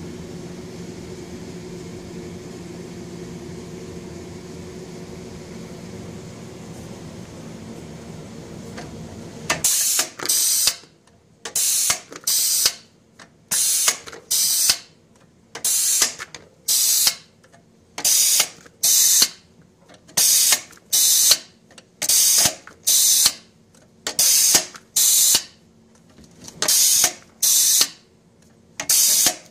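A steady hum for the first ten seconds or so, then a pneumatic French fry cutter cycling: each push of its air cylinder driving potato through the cutting grid gives a pair of sharp air hisses, about one pair every one and a half to two seconds.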